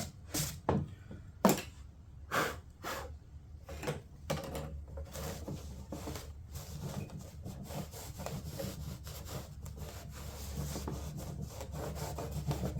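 Hand sanding the edges of a fiberglass door panel to knock down sharp fiberglass splinters. A few separate scratchy strokes and knocks come in the first few seconds, then steady, quick scrubbing.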